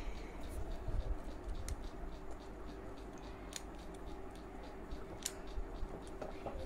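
A child drinking water from a steel tumbler to wash down a tablet, with soft swallowing clicks about every two seconds over a faint steady hum.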